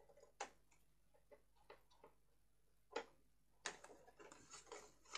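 Faint, short snips of scissors cutting cardstock, trimming small notches: scattered single cuts, then coming more quickly in the last second and a half.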